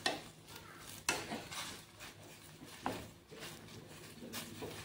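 Chopsticks knocking against a small stainless-steel saucepan as chopped greens are stirred in it: a few scattered clicks, about four.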